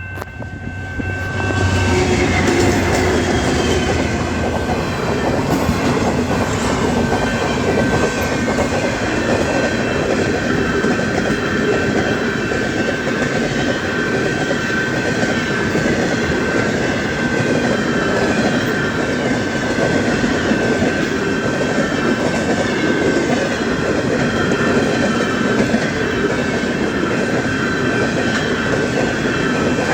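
Freight train passing close by at speed. Its wagons roll over the rail joints with a steady clickety-clack, and a steady high tone sits under the rolling noise. The noise builds over the first couple of seconds, then holds.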